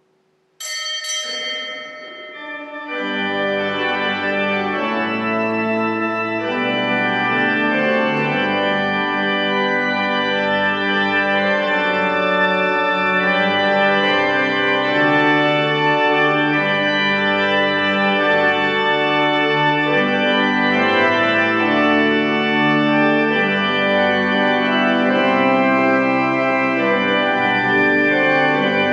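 Church organ playing a slow succession of full, sustained chords over a deep bass. It enters after a brief bright ringing sound about half a second in that dies away within two seconds.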